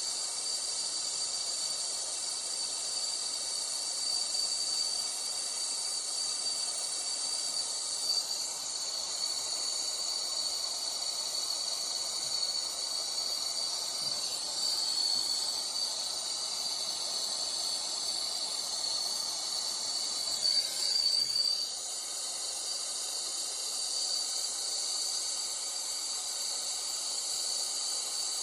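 Steady hiss of gas flowing, even throughout, with a brief louder flutter about three quarters of the way through.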